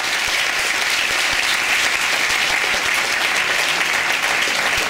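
An audience applauding steadily, the clapping starting all at once just as a speech ends.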